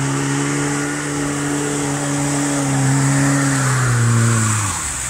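Lada Niva 4x4's four-cylinder engine held at steady revs as it drives through mud, its note sagging and then dropping away as it eases off about four and a half seconds in.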